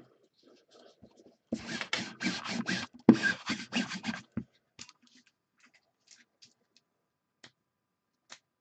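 Close handling noise as a hand works at the camera: rubbing and scraping right on the microphone for about three seconds, loudest near the middle, then a few faint ticks.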